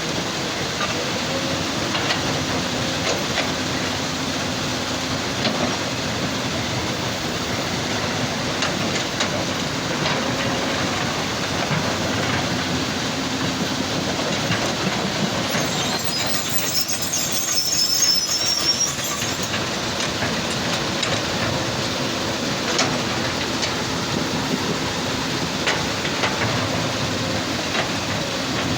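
Heavy machinery working a stone crusher: a steady diesel hum with scattered metallic clanks and clicks, and a high metallic squeal a little past halfway through.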